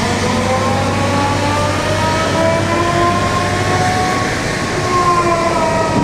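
Sennebogen 735 E-Series timber handler driving with a load of logs: its diesel engine and travel drive running, with a whine that rises slowly in pitch and eases back down near the end.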